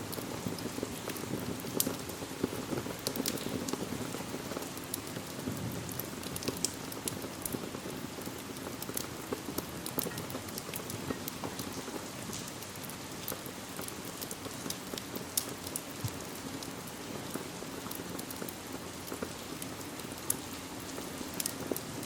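Steady rain falling, with many scattered sharp ticks and crackles on top.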